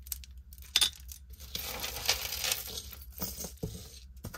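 Jewelry clinking and rattling as pieces are picked up and set down, with a sharp clink a little under a second in, rustling in the middle, and a few more clicks near the end.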